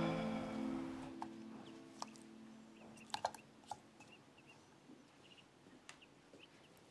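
Background music fading out, then quiet table sounds: a few light clinks of cutlery against a plate, with faint short high chirps.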